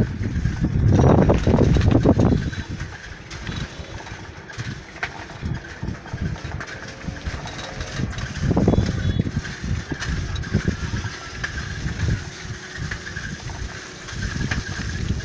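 Low, uneven rumble of heavy trucks' diesel engines idling in stationary traffic, louder in the first two seconds and again about nine seconds in.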